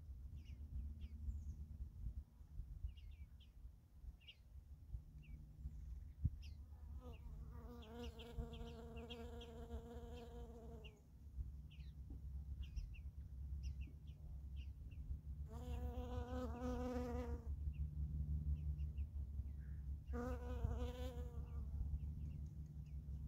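A flying insect buzzing in three passes, about three seconds, two seconds and a second long, over scattered short bird chirps and a low wind rumble on the microphone.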